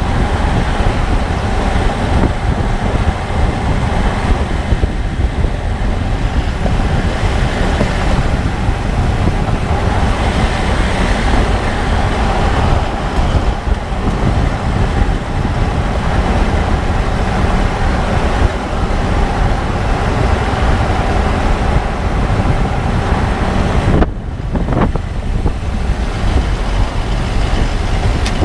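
2014 Range Rover Sport SDV8 on the move: a loud, steady rumble of engine and road noise with a constant hum, dulled briefly about 24 seconds in.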